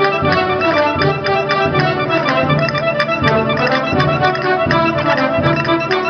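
Castanets clicking along to traditional music led by an accordion-like instrument. The sharp castanet strikes stand out now and then over the steady music.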